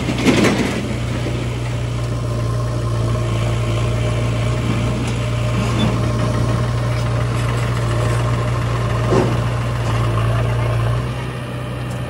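Diesel tractor engines idling, a steady low hum, with a brief louder burst just after the start; the hum eases a little near the end.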